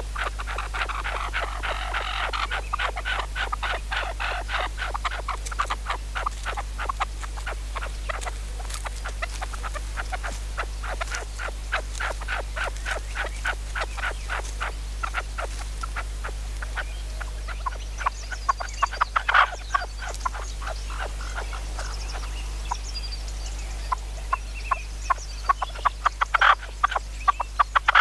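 Red-legged partridges at close range giving a rapid, continuous chatter of short clucking notes, several a second. Small birds chirp higher over the second half, and a few sharper, louder calls stand out about two-thirds of the way in and near the end.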